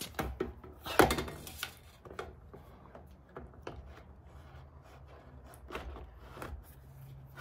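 Removable e-bike battery pack being set into its rear frame mount and snapped in place: a series of hard plastic knocks and clicks, the loudest about a second in, then a few lighter clicks.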